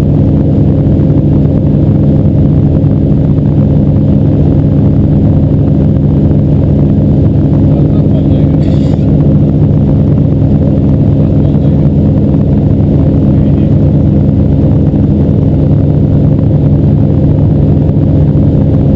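Motorboat engine running steadily at constant speed, a loud, unchanging drone.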